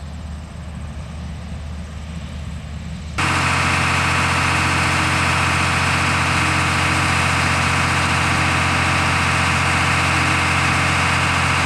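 Heavy harvest machinery engines running steadily: a quieter engine hum, then about three seconds in an abrupt switch to a much louder, closer engine with a strong hiss over it.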